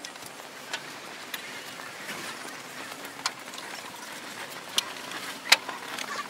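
Passengers moving about inside a coach: a steady background hiss with a handful of sharp knocks and clicks from seats and bags, the loudest one near the end.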